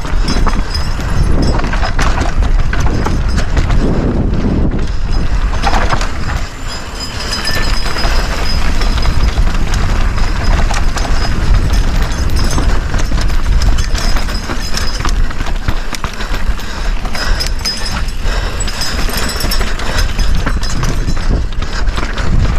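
Mountain bike riding down a rocky trail: a constant rumble of wind on the action-camera microphone, with a rapid, irregular rattle and knocking from tyres and bike over rock.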